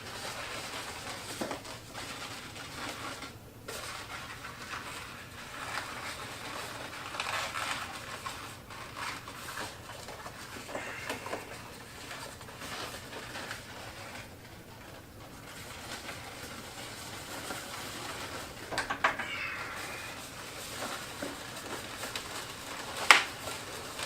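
Latex twisting balloons squeaking and rubbing as they are twisted and bent into shape, with a sharp snap near the end.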